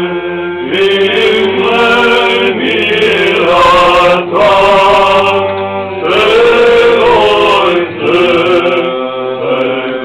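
Voices chanting an Orthodox liturgical hymn a cappella, the melody moving in long phrases over a low note held underneath for the first several seconds.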